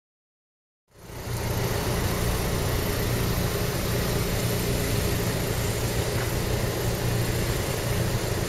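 A motor vehicle's engine idling, a steady low hum that starts about a second in.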